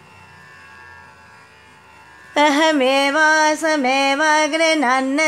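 A faint steady hum, then about two seconds in a woman's voice starts singing a slow melody, with long held notes that bend and step in pitch.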